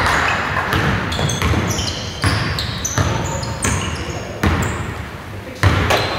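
A basketball being dribbled on an indoor court, irregular sharp bounces, mixed with short high squeaks of sneakers on the court floor.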